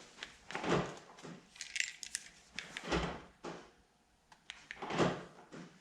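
Three knocks about two seconds apart with small clicks between and a brief jingle of keys: the BMW F20 door's handle and latch being worked to test the newly fitted lock actuator, which gives no sign of working.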